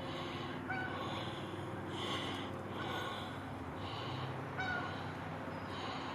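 Canada geese honking repeatedly at a distance, short calls about a second apart.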